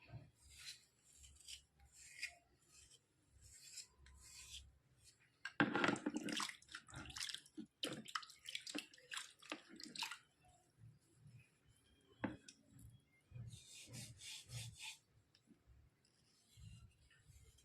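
Irregular scraping and rubbing strokes on white slate pencil residue, with a wet, washing quality. A cluster of louder strokes runs through the middle, with softer scrapes before and after.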